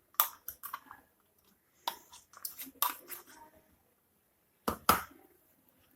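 Light clicks, taps and scrapes of a knife and utensils handling bread and cheese, in three short clusters: just after the start, from about two to three and a half seconds in, and briefly near five seconds.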